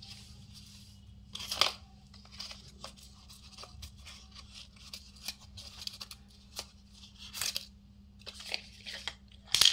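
A small cardboard product carton being torn open by hand, with scattered tearing and rustling of paper packaging. The loudest rips come about one and a half seconds in and just before the end.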